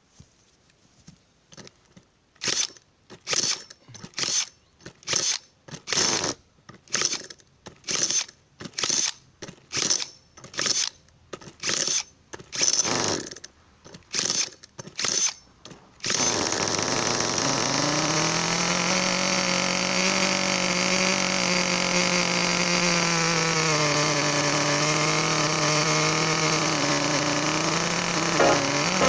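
Cordless drill with a 3D-printed starter cone cranking a nitro model engine in short bursts, about two a second. About 16 seconds in the nitro engine catches and runs steadily, its pitch dipping slightly now and then.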